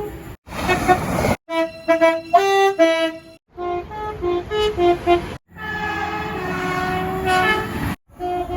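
Train air horns in a run of abruptly cut short clips: several short toots of a multi-note chime horn, then a longer blast over the rumble of a passing train near the end.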